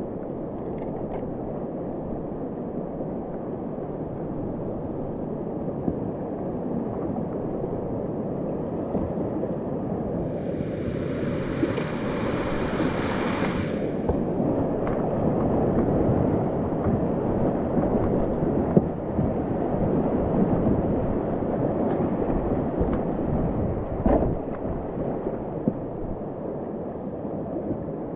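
River whitewater rushing as a kayak runs a rapid, the water noise growing louder in the middle as the boat passes through the breaking waves. Now and then a brief knock stands out.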